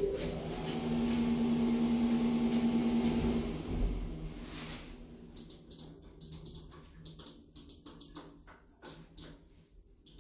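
Lift car interior: a steady electric hum that cuts off after about three seconds, a short hiss, then a run of sharp clicks as the car's push buttons are pressed again and again.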